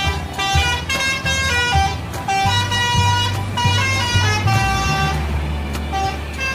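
Bus 'telolet' musical air horn playing a quick run of different notes, like a tune, over a low steady rumble.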